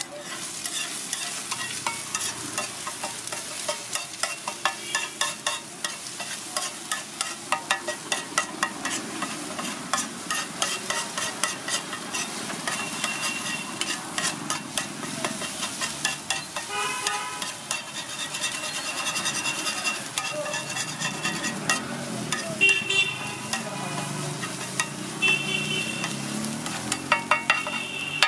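Egg omelet being chopped and stirred on a hot flat iron griddle: a metal spatula clatters and scrapes against the iron in rapid strokes over a steady sizzle.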